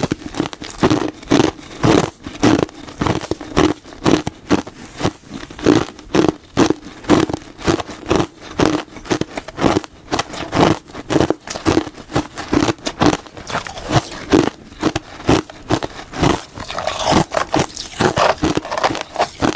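Close-miked biting and crunching of something hard and brittle, a sharp crunch about twice a second, continuing steadily.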